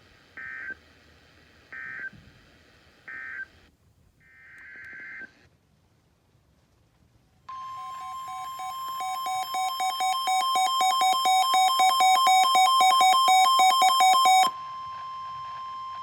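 Emergency Alert System signalling on NOAA Weather Radio: three short warbling bursts of SAME digital data marking the end of a warning, then one longer data burst. After a short silence the 1050 Hz warning alarm tone sounds with a rapid pulsing alarm beep over it. The two grow louder for about seven seconds, then the beep stops and the steady tone continues alone at a lower level.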